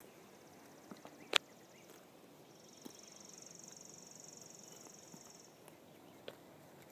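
Faint open-field ambience in which an insect keeps up a high, finely pulsed trill for about three seconds in the middle, with a shorter, weaker trill before it. A single sharp click a little over a second in is the loudest sound.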